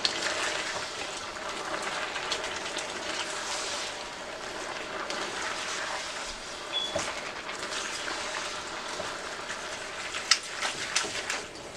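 Chow mein noodles and beef sizzling and bubbling in a pan of sauce and broth as they are stirred and tossed, the sauce cooking down to thicken. A few sharp clicks of the utensil against the pan come near the end.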